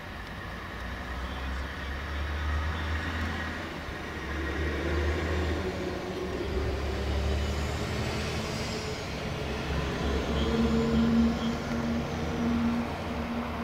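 Road traffic passing close by: a low engine and tyre rumble that swells and fades as vehicles go by, with a steadier engine hum coming in near the end.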